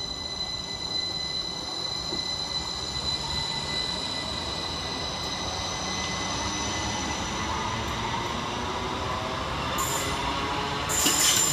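Class 333 electric multiple unit pulling away, its traction equipment giving a whine of steady high tones over a rumble of wheels on rail that grows louder. Near the end a loud, rough rushing noise sets in.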